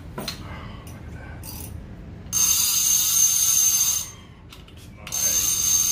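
A new Avet fishing reel's handle being cranked by hand in two spells of about a second and a half each, the reel's gears and clicker giving a fast, loud, steady buzzing rattle.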